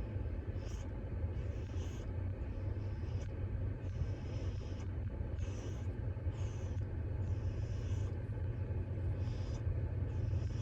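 Snoring: a steady low rumble with a breathy hiss that comes and goes about once a second.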